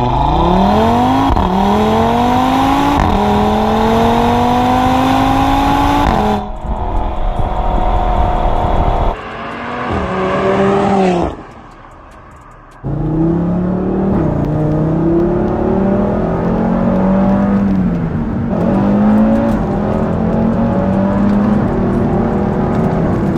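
Audi RS3 Sportback's turbocharged 2.5 TFSI five-cylinder engine accelerating hard: the engine note climbs and drops back at quick upshifts, again and again. The sound changes abruptly several times, with a short quieter stretch about halfway through, and then more climbing pulls through the gears.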